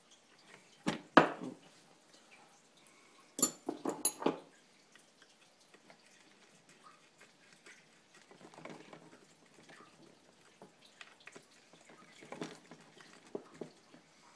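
Small hard clicks and knocks of RC transmission parts and tools being handled while screws are taken out: two sharp knocks about a second in, a quick cluster of clicks near four seconds, then faint rattling and rustling.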